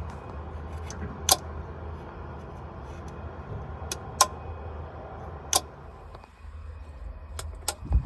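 Crank and run relays in a Kohler 60 kW generator's controller clicking several times as manual start is pressed, with no starter cranking: the sign of a no-crank fault. A low steady hum runs underneath, and there is a low thump at the very end.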